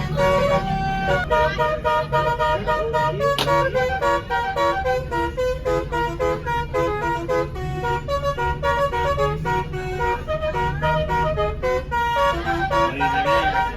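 Basuri multi-tone 'telolet' bus horn playing a quick tune of short, stepped notes in several voices, over the bus engine's steady low running.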